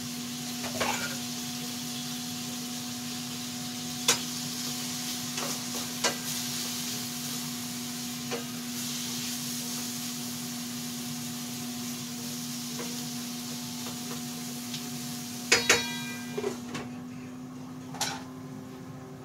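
Food frying in a skillet with a steady sizzle while a utensil stirs and scrapes, with occasional clicks against the pan. Near the end a metal lid clanks onto the pan with a ringing sound, and the sizzle dies down. The food is thawed but not yet browned.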